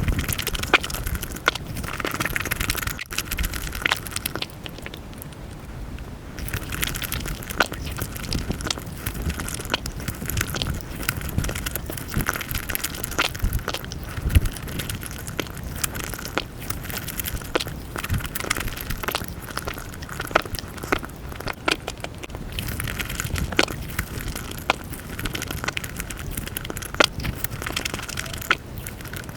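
Close-miked eating of Nutella pancake crepes: chewing and mouth sounds with a dense run of sharp clicks and crackles.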